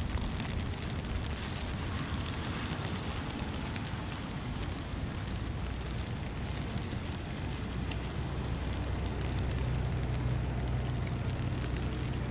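City street ambience with traffic: a steady wash of noise, with a vehicle's low engine hum coming in about eight seconds in and holding for a few seconds.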